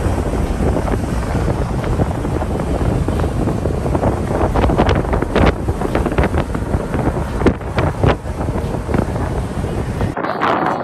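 Wind buffeting a phone microphone in an open-top convertible moving at speed: a loud, steady rush with gusty peaks that cuts off suddenly near the end.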